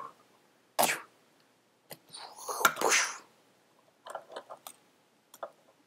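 Breathy, hissing mouth sound effects for a toy-monster fight: a short burst about a second in and a longer, louder one around two to three seconds in, followed by a few quick clicks.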